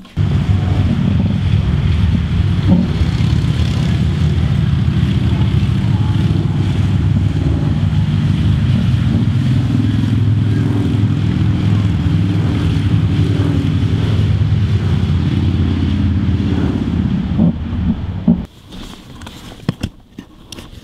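A cordless drill's motor running steadily at speed, spinning the saw-blade axial flux alternator, with a low hum and a faint high whine. It starts suddenly and cuts off about 18 seconds in.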